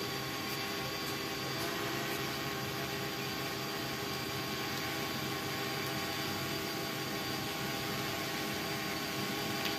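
Multirotor drone's brushless motors (930 kV) spinning 1045 propellers in a hover: a steady hum of several held tones over a hiss.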